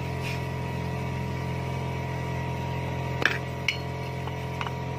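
Metal clinks from a motorcycle rear drum-brake backing plate and hand tools being handled and set down on a concrete floor: a sharp clink a little after three seconds in, another half a second later, then two lighter taps, over a steady low hum.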